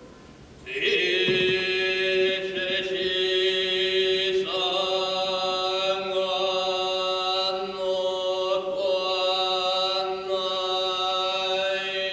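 A Buddhist monk chanting alone in long held tones. The voice steps up to a higher note about four and a half seconds in.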